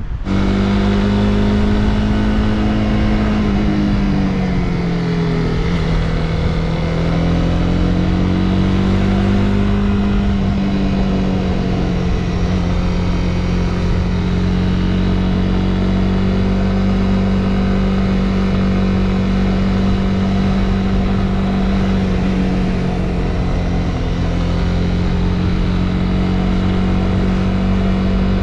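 Motorcycle engine running at a steady cruise. Its pitch drops about four seconds in and climbs back a few seconds later, with a smaller dip later on.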